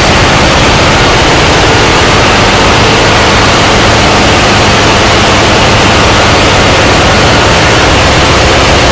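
Loud, steady din of a ship's engine room machinery: an even roar with a low hum running under it.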